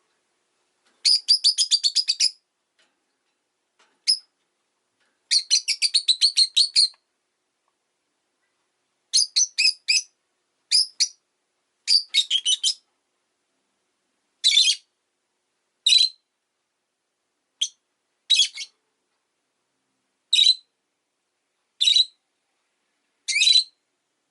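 Rosy-faced lovebird chirping: quick strings of sharp, high chirps with short silences between them, thinning out later into single short calls about every one and a half seconds.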